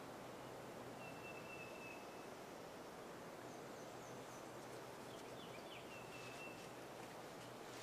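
Faint songbirds in quiet spring woods over a steady low hiss: a thin drawn-out whistle about a second in and again near the end, with a few short chirps in between.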